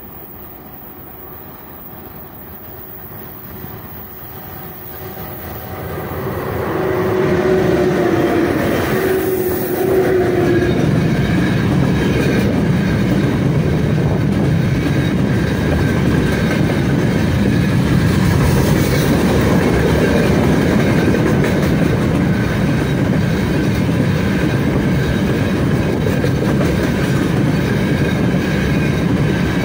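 A 3ES5K 'Ermak' electric locomotive hauling a freight train approaches and passes close by, growing louder over the first seven seconds, with a steady whine as the locomotive goes by. The loaded gondola wagons then roll past with a continuous rumble and clickety-clack of wheels over rail joints.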